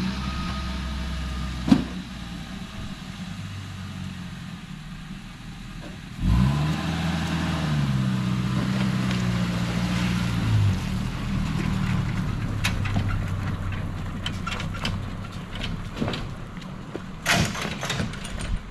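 An engine already running at idle; about six seconds in it revs up, holds a higher speed for about four seconds, then drops back to a steady idle. A few sharp clicks come near the end.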